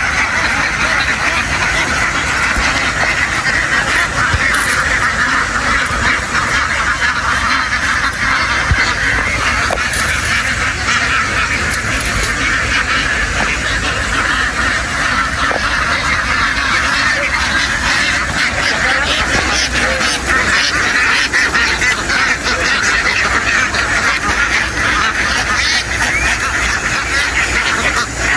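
A very large flock of farmed ducks quacking all at once, a dense, steady din of countless overlapping calls with no let-up.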